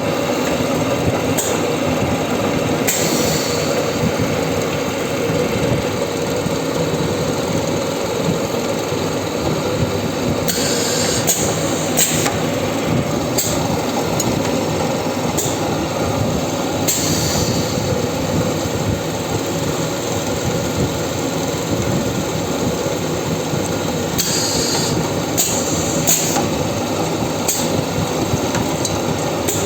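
Special-purpose multi-spindle drilling machine running with a steady mechanical drone, broken by short hissing bursts every few seconds.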